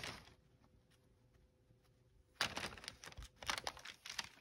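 Near quiet for about two seconds, then light rustling and small clicks of a paper pattern overlay and fabric appliqué pieces being handled.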